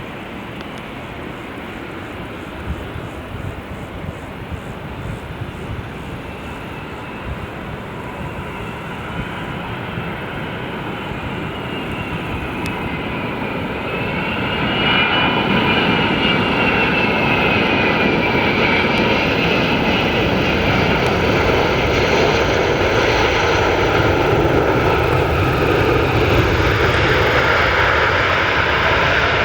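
Airbus A380's four jet engines running. The roar grows louder as the plane approaches, then holds loud from about halfway, with a high whine wavering up and down in pitch.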